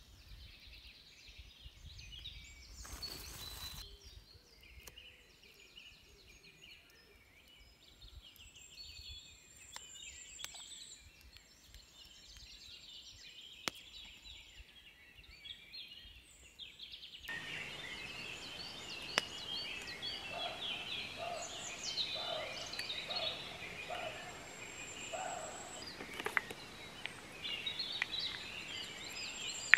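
Several small birds chirping and trilling in woodland, with a few sharp clicks; the birdsong becomes louder and busier about halfway through.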